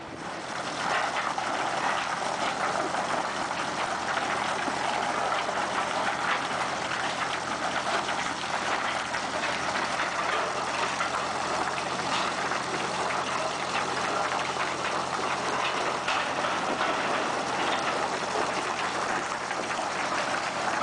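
A rip-rap work boat's engine running steadily with a low hum while water churns and rushes around the hull, a loud steady rushing that starts suddenly about half a second in.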